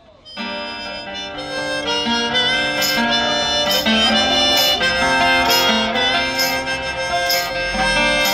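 Hohner Marine Band harmonica playing held chords and melody, with a Cort baritone acoustic guitar thumb-picked under it at about one strum a second. The music comes in about half a second in.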